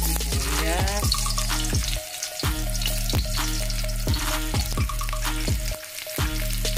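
Sliced onions and garlic sizzling in hot oil in a wok, with a spatula stirring now and then. Background music with a bass line and a steady beat plays under it, dropping out briefly twice.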